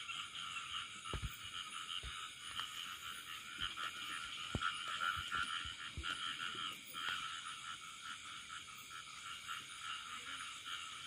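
A steady, flickering chorus of frogs calling from the flooded rice paddy at night. A few soft low knocks from the bait and hook being handled sound over it.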